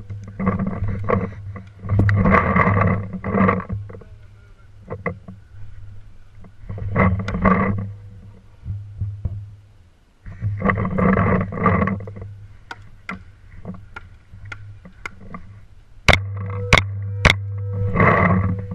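Paintball marker firing three sharp shots in quick succession near the end, with scattered fainter shots before it and repeated bursts of rustling and handling noise on the gun-mounted camera.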